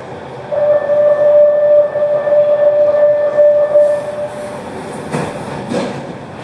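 A steady, high warning tone sounds on a Barcelona Metro L10 train for about four seconds over the train's rumble. It is followed by two sharp thuds.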